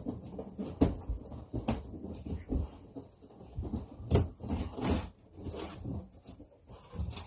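A cardboard box being opened and its packaging handled: irregular rustling and scraping with scattered knocks.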